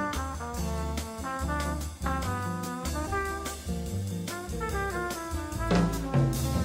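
Background music: upbeat jazz with brass, trumpet and trombone, playing quick runs of short notes over bass and drums.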